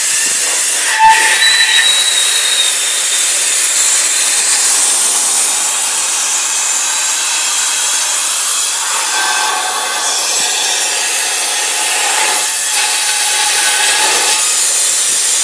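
Nitrogen hissing loudly and steadily out of a transfer hose from a liquid nitrogen storage tank into a dewar, with a short knock and squeal about a second in. It is the hose's cooldown: mostly cold gas is coming through before the liquid arrives.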